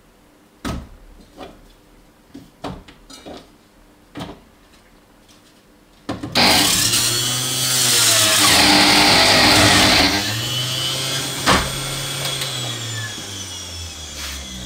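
A few clicks and knocks as the appliance is handled, then about six seconds in an electric blender motor starts with a loud whir. It runs at full speed for about four seconds, then eases off, its pitch slowly falling as it winds down, with one sharp click along the way.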